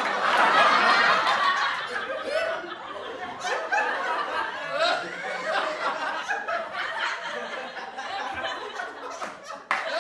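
A group of people laughing and chuckling together, mixed with some talk. The laughter is loudest for the first couple of seconds, then thins to scattered chuckles and snickers, and breaks off abruptly near the end.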